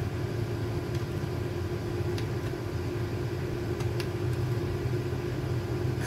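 Steady low hum with a few faint clicks, while the dual-fan waist fan's power button is held down and its blades have not yet started.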